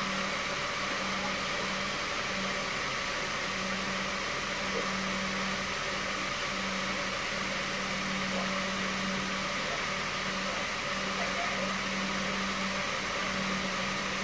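A steady machine hum: a low buzz under an even hiss, unchanging.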